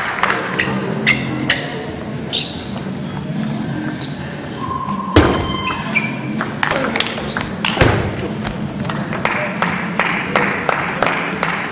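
Table tennis balls clicking against tables and bats in a large echoing sports hall, over a murmur of voices, with a loud knock about five seconds in.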